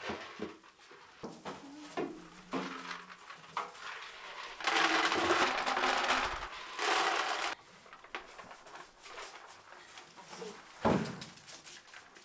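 Dry feed poured from a plastic scoop into a bucket in two pours, a rushing patter lasting about three seconds, with scattered knocks of handling before and after. One sharp knock stands out near the end.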